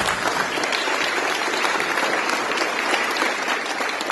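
A roomful of people applauding, the clapping starting at once as the speech ends and going on steadily.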